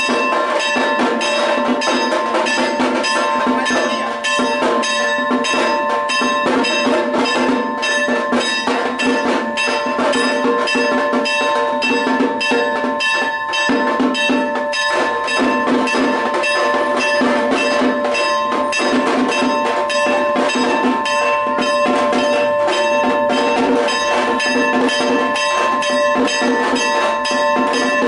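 Loud, continuous music of fast, dense drumming with bells ringing over steady held tones, typical of live temple ritual music.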